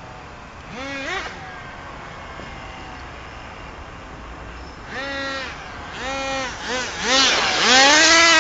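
HPI Rush Evo nitro RC truggy's small two-stroke glow engine revving in short throttle blips, each a quick rise in pitch. Near the end it winds up into a long, loud full-throttle run as the truck comes close.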